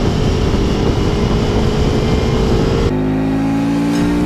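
Motorcycle engine pulling at road speed with heavy wind rush, its note climbing steadily. About three seconds in, the sound switches to the KTM Super Duke's V-twin heard close up: a lower, clearer engine note that also creeps up in pitch as it accelerates.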